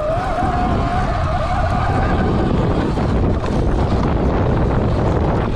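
Stock 2020 Sur Ron X electric dirt bike's motor whining under throttle, its pitch wavering, then fading out about two seconds in. Wind buffets the microphone and the tyres rumble over the dirt throughout.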